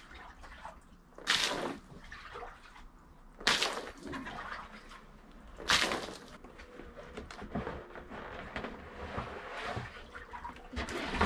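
Rainwater pooled on the lid of a cold-plunge tub being scooped out by hand with a small cup and tossed away: three splashes about two seconds apart, then lighter sloshing and dripping, and another loud splash at the end as the lid is lifted.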